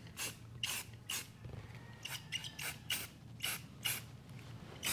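Aerosol spray-paint can hissing in a string of short bursts, about two a second, as paint is laid on a cast-iron engine block in light coats.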